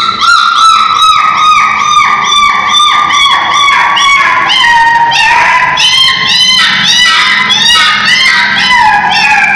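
A puppy whining and crying in a fast, unbroken run of high-pitched yelping cries, about three a second, the pitch drifting slowly lower.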